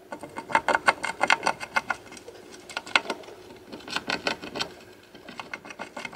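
Djungarian hamster gnawing and pulling at the metal bars of its wire cage: quick clicking rattles in several short bursts, with a light metallic ring. This is bar-biting, a hamster's way of asking to be let out.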